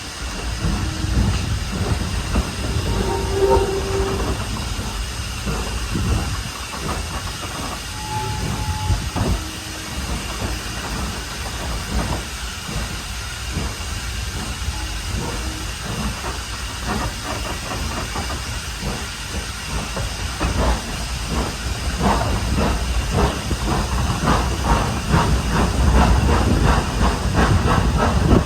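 Standard-gauge steam locomotive working hard up a steep gradient: a steady hiss of steam with a regular chuff of exhaust beats, which become stronger and more even in the second half.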